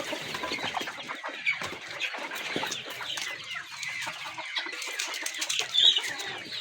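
A flock of desi hens clucking and calling together, many short overlapping calls, with a louder call near the end.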